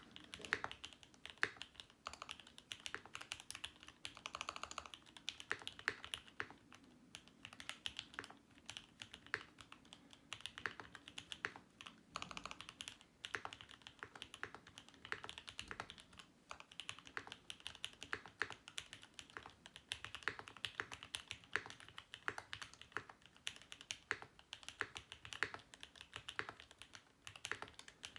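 Continuous typing on a Mode Eighty mechanical keyboard with lubed C³ Tangerine 67g linear switches, GMK keycaps and an aluminium plate: a fast, steady stream of keystroke clacks.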